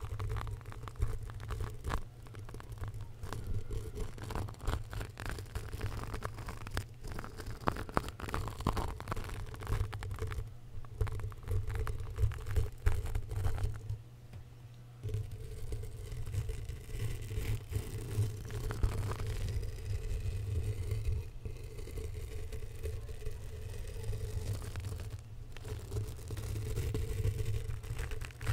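A small twisted-wire bristle brush rubbed and scraped directly on a foam-covered microphone, giving a continuous close scratchy rustle over a low rumble from contact with the mic. There is a brief lull about halfway through.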